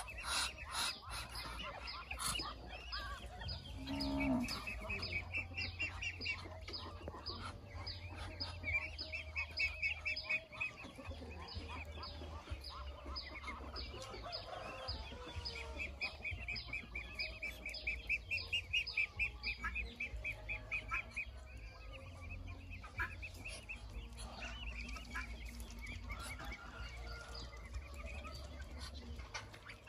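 Flock of helmeted guineafowl calling in rapid repeated chattering notes, several a second, in runs that swell and fade.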